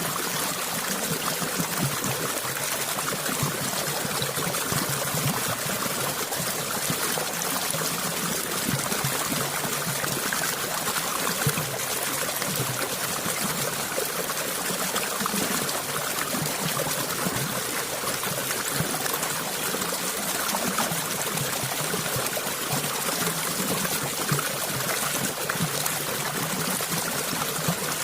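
Shallow stream of water flowing and trickling steadily, a continuous even splashing rush.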